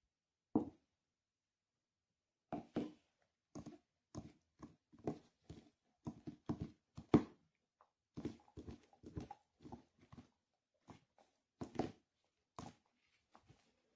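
Dog gnawing a hard nylon chew bone: irregular short clicks and knocks of teeth on the toy, with gaps between them.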